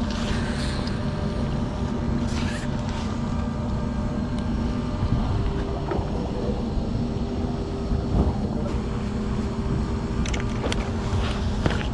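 Boat engine running steadily, a constant low hum, with a few short bursts of noise on top.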